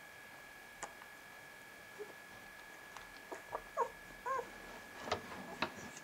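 Very young vizsla puppies giving a few short, thin squeaks and whimpers around the middle, one rising and falling, with a couple of soft clicks from them shifting. A steady faint high whine sits underneath.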